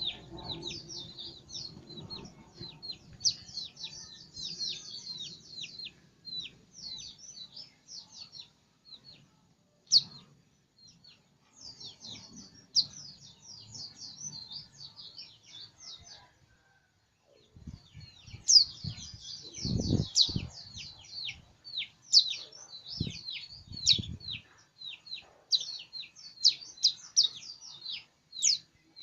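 White-eye (pleci) singing: fast runs of high, thin chirps in phrases a few seconds long, broken by short pauses. A few low thumps come about two-thirds of the way through.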